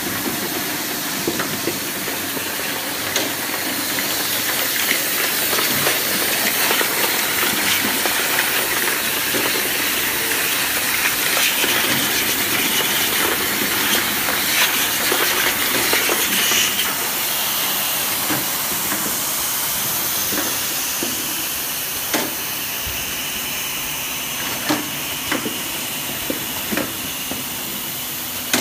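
Four-head linear cap lining machine running, with loose plastic caps moving through its elevator and vibratory bowl feeder: a steady high hiss of noise with scattered sharp clicks. It is a little louder around the middle, and several clicks stand out in the last few seconds.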